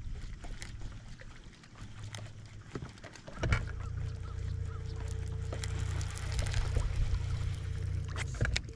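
A boat motor runs with a steady low hum. It is faint at first and comes up strongly from about three and a half seconds in, just after a sharp knock, then drops away just before the end, with light water splashing throughout.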